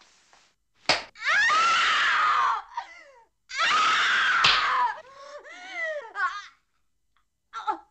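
A woman screaming twice, long and loud, each scream falling in pitch. The screams follow a sharp crack about a second in and break into shorter sobbing cries after the second one.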